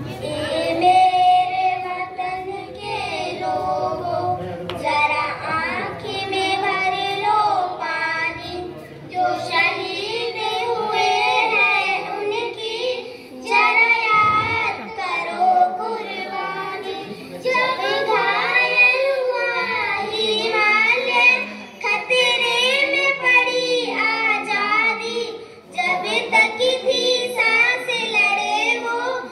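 A child singing a song in short phrases, with faint backing music.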